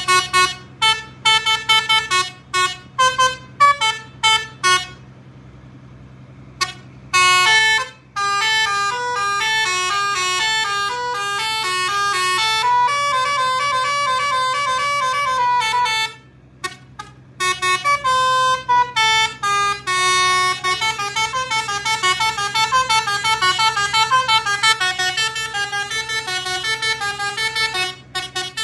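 HDI telolet basuri multi-tone horn playing: a string of short toots at first, then about a third of the way in a continuous melody of changing pitches that runs on, with a brief break about halfway through. A steady low hum sits underneath.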